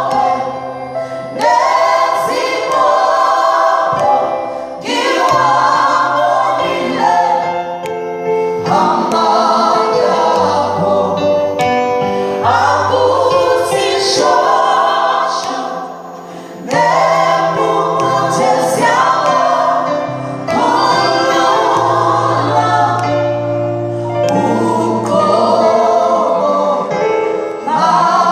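Gospel choir of vocalists singing in phrases, with sustained low notes from an instrument underneath, at a sound check.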